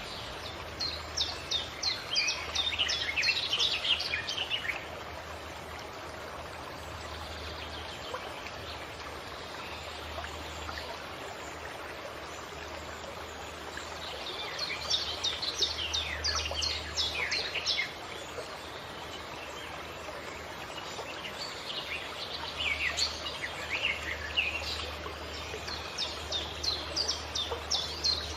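Wild birds singing in three bouts of rapid chirping phrases, near the start, in the middle and toward the end, over a steady rush of running stream water.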